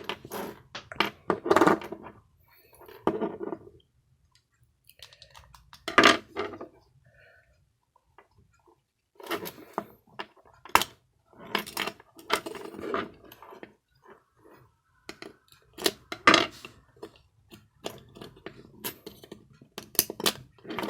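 Irregular clicks, taps and scrapes of a Toyota Prius remote key fob being taken apart by hand: the key removed and the plastic case prised open to reach its flat button battery.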